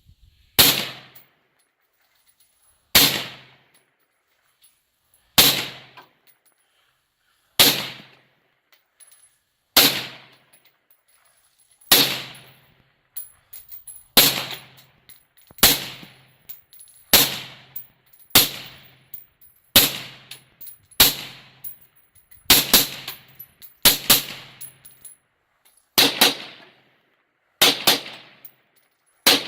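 Suppressed LWRCI M6 SPR piston-driven 5.56 rifle firing single shots, about seventeen of them, each with a short ringing tail. The shots come a couple of seconds apart at first and quicken to about one every second and a half.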